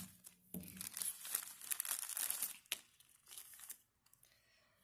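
Clear plastic parts bag from a wheel cylinder rebuild kit crinkling as a hand rummages in it for a rubber seal. The rustling stops near the end.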